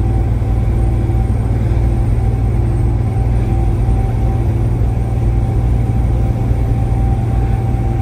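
Steady low engine and road rumble inside a semi-truck cab cruising at highway speed.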